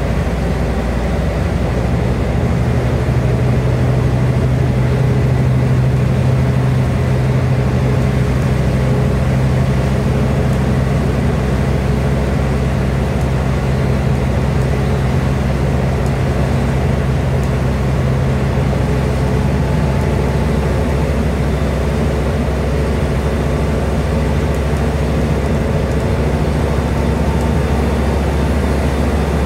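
Scania N230UD double-deck bus with its Scania DC09 9.0-litre five-cylinder diesel running steadily at road speed, heard from inside the saloon, with tyre and road noise on a wet road. The engine hum drops to a lower note about twenty seconds in.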